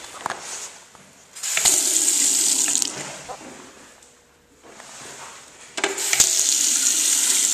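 A chrome two-handle sink faucet running water into the basin, in two spells of about a second and a half each that start abruptly.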